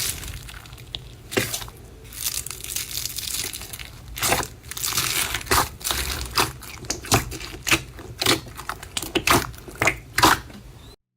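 Slime being squeezed and pressed by hand, making irregular sharp crackling and popping sounds that come thicker in the second half and stop just before the end.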